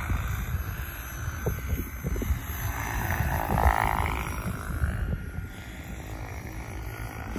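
SAB Kraken 700 electric RC helicopter in flight: rotor whoosh and the whine of its brushless motor. The whine rises and swells about halfway through as the helicopter comes closer, then falls away. Wind buffets the microphone throughout.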